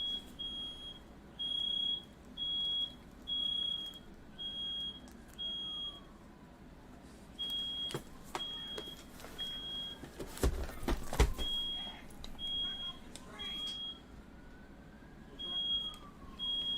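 Smoke alarm sounding in a run of short, high-pitched beeps, about one every 0.7 s with brief pauses, set off by smoke from a fire. A few loud, sharp knocks come about ten seconds in.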